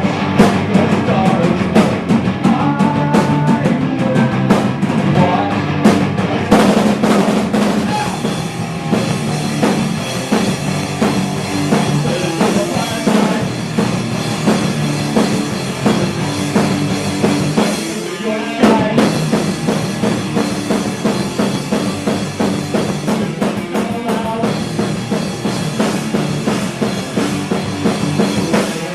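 Rock band playing an instrumental passage, with the drum kit's kick and snare to the fore over bass and guitar. The bass drops out briefly about eighteen seconds in, then the full band comes back.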